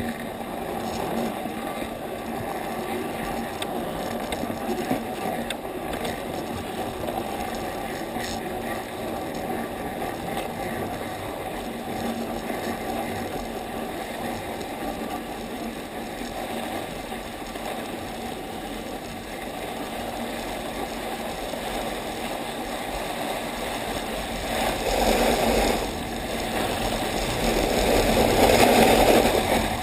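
Steady scraping rumble of a snow sled's runners sliding over packed snow, mixed with wind on a helmet-mounted camera. It grows clearly louder in the last few seconds as the descent picks up speed.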